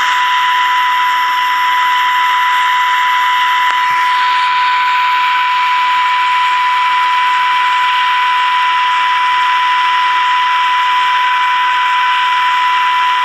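Transistor radio's speaker putting out a steady test tone over loud hiss: the tone-modulated 455 kHz signal from a signal generator, heard while the IF transformer cores are peaked during alignment. The hiss shifts slightly about four seconds in.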